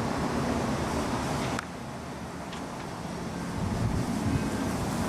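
Wind blowing in a heavy snowstorm, a steady rushing noise heard through an open door; the level drops suddenly about a second and a half in and slowly rises again.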